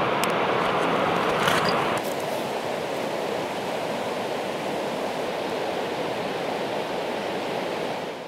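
Alpine river water rushing steadily over stones, with a few faint clicks in the first couple of seconds. The level drops a little about two seconds in and fades out at the end.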